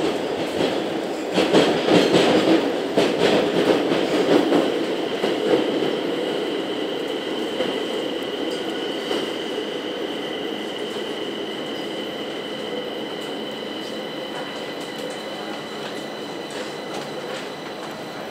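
Madrid Metro Line 9 train heard from inside the carriage as it runs into a station and slows: loud rattling wheel clatter for the first few seconds, then steady running noise with a thin high whine, growing gradually quieter as the train comes to a halt.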